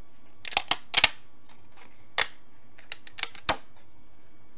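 Sharp plastic snaps and clicks as 3D-printed filament model parts are popped off their print raft. A quick cluster comes about half a second in, a single snap about two seconds in, and another cluster around three seconds in.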